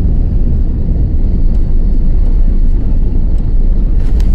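Jet airliner cabin noise as the plane rolls along the ground just after landing: a loud, steady low rumble of engines and wheels, with a couple of faint clicks or rattles near the end.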